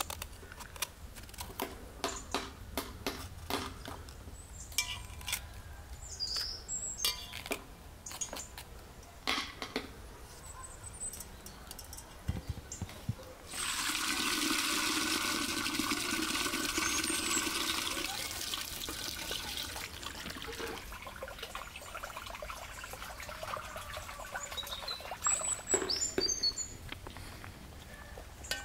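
Knife clicks as a bell pepper is cut over an enamel bowl, then, about halfway through, water runs and splashes for several seconds as cut peppers are rinsed in a bowl and the water poured off.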